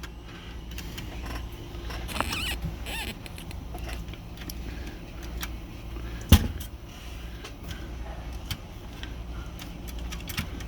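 Small metal clicks and a brief squeak from an Olympia SG-3 typewriter's platen and paper injector mechanism being handled and worked, with one sharp loud click about six seconds in, over a steady low hum.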